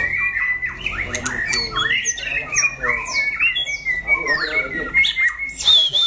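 Many caged songbirds, white-rumped shamas among them, singing and calling over one another in a dense, fast chorus. A long high whistle starts near the end.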